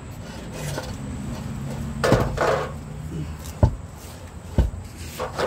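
Tools knocking and scraping against the underside of a car: a sharp knock with a short scrape about two seconds in, then two more knocks a second or so apart.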